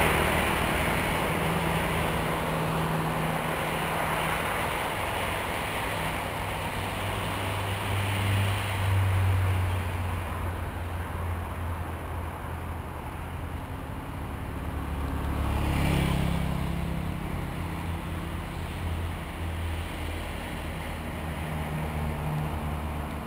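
Road traffic passing: motor vehicles go by one after another, with a steady low engine hum underneath. The loudest passes just at the start, and smaller swells come about nine and sixteen seconds in.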